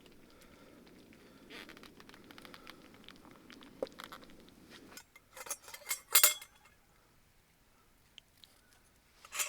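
Spoon or cutlery clinking and scraping against cookware. A soft, low stirring sound with faint taps comes first, then a quick run of sharp, loud clinks about five to six and a half seconds in, and one more clink near the end.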